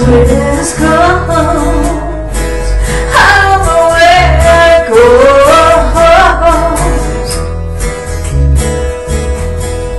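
Live acoustic music: a strummed acoustic guitar with low bass notes and a melody line that rises and falls over them, with no sung words.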